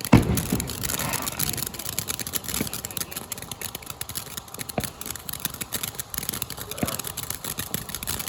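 Consumer fireworks going off: a sharp bang at the start, then steady crackling hiss with scattered pops.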